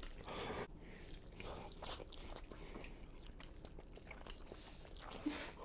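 Close-miked eating of noodles by two people: irregular soft slurps, wet chewing and small mouth clicks.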